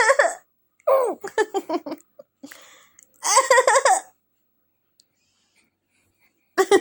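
A baby laughing in short, high-pitched bursts of giggles, the last coming after a pause of a couple of seconds.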